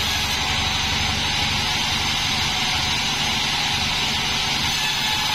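36-inch band sawmill running steadily while sawing a bayur log: a low motor hum under a steady hiss of the blade.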